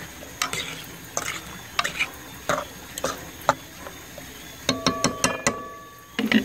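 Metal spoon stirring fish in a thick sauce in a metal pot, scraping and knocking against the pot with a short click about every half second. About five seconds in, a quick run of knocks makes the pot ring.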